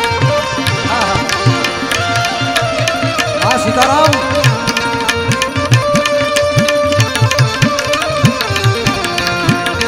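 Instrumental interlude: tabla played in a brisk rhythm, the deep bayan strokes often bending in pitch, under a melody line with held notes and short glides.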